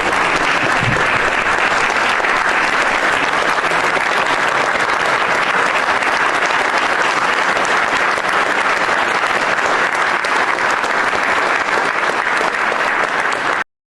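Sustained applause from a crowd in a room, steady throughout and cutting off abruptly near the end.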